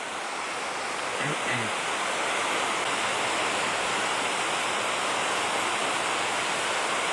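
Steady rushing of river water, a continuous even hiss that swells slightly over the first couple of seconds and then holds.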